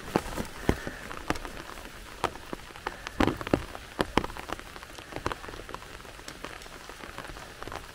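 Rain falling, with many irregular drops ticking sharply close by.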